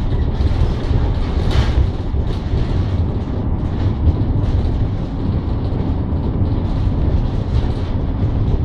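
Steady engine and road noise inside the cab of a Citroën Relay van on the move, a low rumble that holds throughout.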